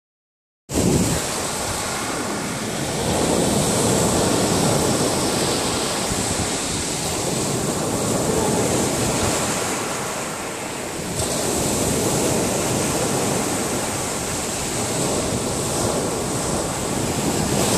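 Sea waves breaking and washing over a pebble beach. The surf swells and eases every few seconds.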